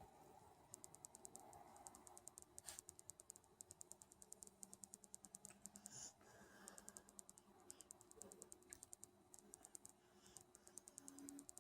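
Faint snoring from a sleeping Alice: each breath comes as a run of soft, quick clicks, about seven or eight a second, lasting a second or three, with short pauses between breaths.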